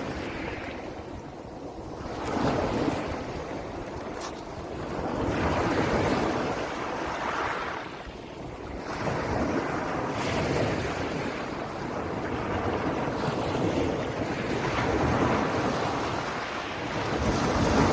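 Ocean waves breaking and washing up, the surf swelling and falling back every few seconds, with wind buffeting the microphone.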